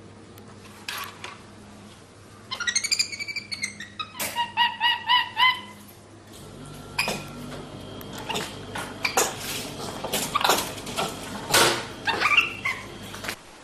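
A bird calling: a quick run of chirps, then five evenly spaced pitched calls. After that come a series of sharp knocks and clicks.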